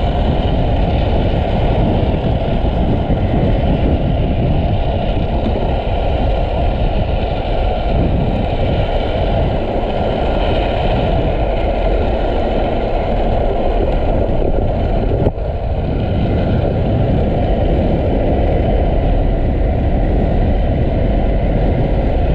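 Steady road roar of an unpowered speed trike's hard plastic rear wheels and bicycle front wheel rolling fast on asphalt, mixed with wind rushing over the camera. A single sharp knock about fifteen seconds in.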